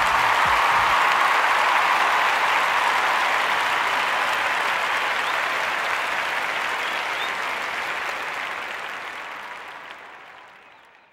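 A crowd applauding steadily, then fading out over the last few seconds.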